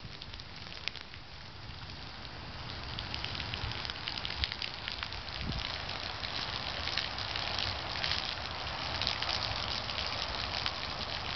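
Rain falling on standing water on an asphalt driveway: a steady hiss of drops pattering, with water splashing, growing a little louder over the first few seconds.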